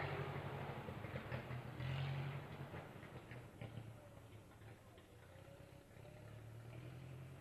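The engine of a 1925 Indiana truck running as the truck drives away, a steady low hum with light ticking. It fades over the first few seconds and swells a little again near the end.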